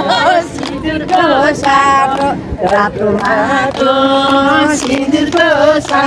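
A woman's voice singing a Nepali folk song without accompaniment, in long held notes with bending pitch between phrases.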